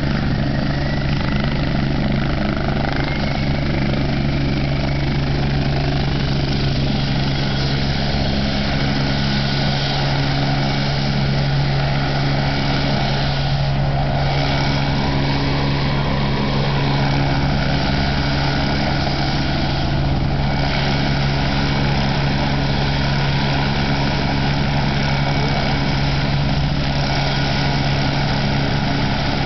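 Police helicopter landing: its rotors and engine make a loud, steady drone throughout.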